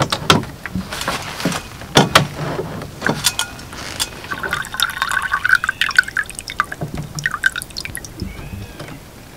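Water running from the plastic spigot tap of a Ridgemonkey 10-litre water carrier into a small metal cup. It opens with clicks and knocks as the tap is handled and the cup is brought under it. The pour is steadiest in the middle, then thins to a thin stream and drips near the end.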